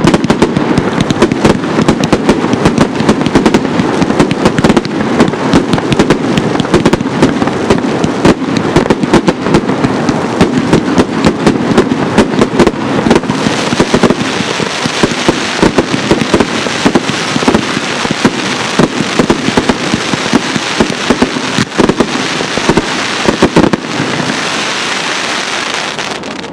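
Jorge JW-417 100-shot, 30 mm fireworks cake firing in rapid, constant succession, the launch thumps and shell bursts overlapping. In the last couple of seconds the big bangs thin out into crackling, and the sound dies away as the cake finishes.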